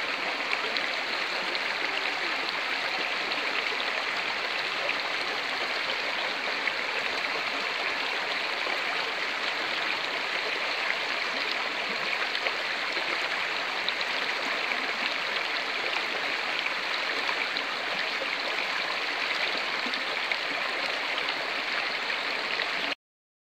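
Shallow rocky stream rushing and splashing over small cascades between boulders: a steady rush of water that cuts off abruptly near the end.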